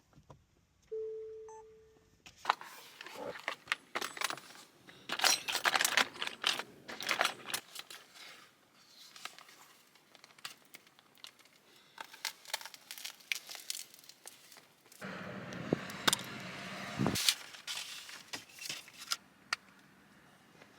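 Hands at work on an iPad screen repair: scattered clicks, taps and crinkling of plastic and small parts, with a short beep about a second in and a steady hiss for about two seconds near the end.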